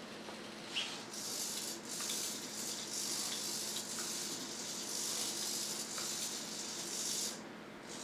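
Small hobby servo motors in a 3D-printed walking robot whirring as they tilt its body and turn its head. A click about a second in, then a steady high buzzing whir with a short break soon after, stopping near the end.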